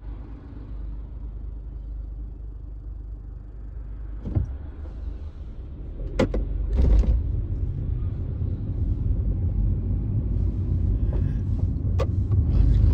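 Low rumble of a car driving slowly in traffic, heard from inside the cabin, growing louder about six seconds in, with a few sharp clicks.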